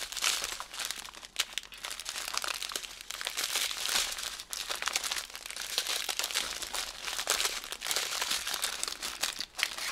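Small plastic zip bags of diamond-painting drills crinkling and rustling as they are gathered and shuffled together by hand, a continuous crackle of many small clicks.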